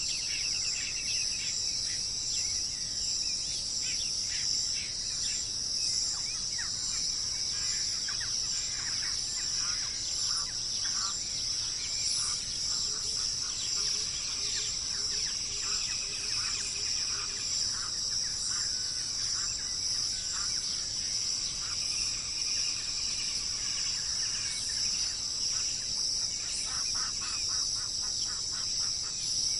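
Wild birds singing and calling, with short chirps and quick trills coming and going, over a steady high-pitched drone. About thirteen seconds in, a run of evenly spaced low notes sounds for a few seconds.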